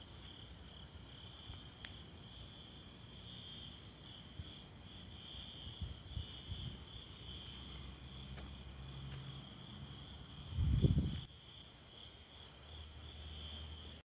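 Steady chorus of night-singing insects, crickets, in two high pulsing bands, over a faint low hum. A brief low rumble stands out late on, the loudest thing heard.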